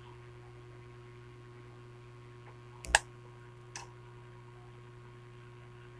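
Steady low electrical hum, with one sharp click about three seconds in and a fainter click a second later.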